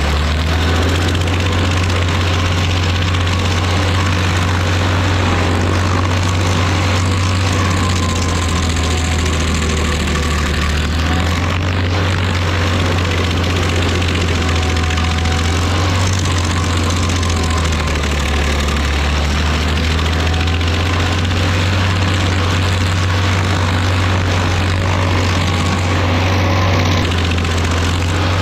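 Rayco RG50 stump grinder at work, its cutter wheel grinding into a tree stump and throwing wood chips. A steady deep engine drone, its pitch shifting slightly a few times, under a continuous rough grinding noise.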